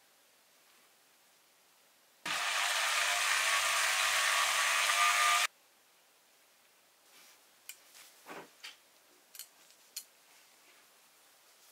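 A small motor or power tool whirs steadily for about three seconds, starting and stopping abruptly, followed by a scatter of light clicks and taps.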